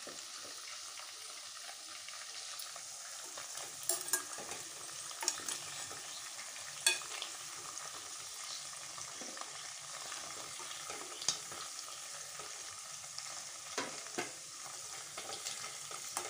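Chicken pieces frying in hot oil in a pot: a steady sizzle, with a steel spoon stirring through them and clicking against the pot a few times. The chicken is being fried on high heat until browned.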